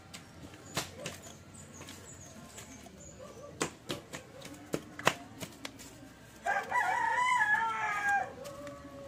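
A rooster crows once, a single call of under two seconds starting about six and a half seconds in, the loudest sound here. Before it come scattered sharp clicks and faint high bird chirps.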